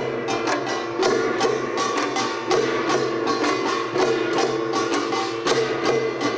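Korean pungmul percussion: brass kkwaenggwari small gongs struck in a rapid, steady rhythm over the ringing of larger jing gongs.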